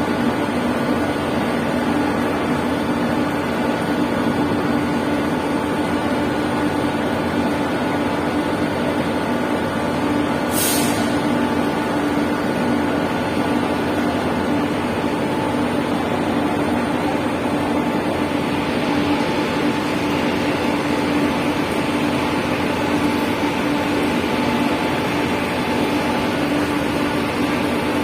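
Bus engine running steadily with a constant low hum, and a short air-brake hiss about ten seconds in.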